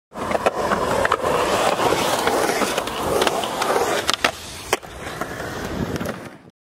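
Skateboard wheels rolling over a concrete bowl, with a series of sharp clacks and knocks as boards strike the concrete and coping. The rolling is louder for the first few seconds, then softer, and cuts off suddenly near the end.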